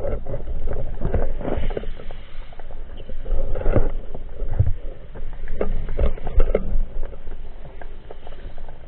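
Muffled underwater handling noise from a speargun-mounted camera: irregular knocks and clicks as a gloved hand works the gun's three-prong spear tip, over a low rumble of water moving past the housing. The knocks thin out near the end once the hand lets go.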